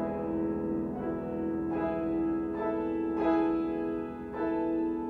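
Solo piano improvising slow sustained chords, a new chord struck every second or so and left ringing.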